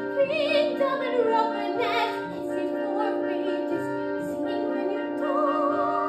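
A woman singing a high soprano line with wide vibrato, over a backing track of held chords.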